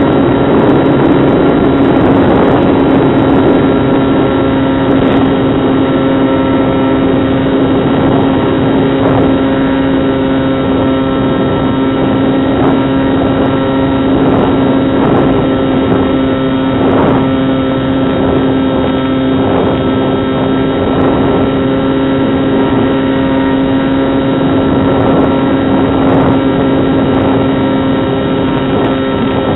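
Bixler 2 RC plane's brushless electric motor and pusher propeller running steadily in flight: a steady hum with wind noise on the onboard microphone.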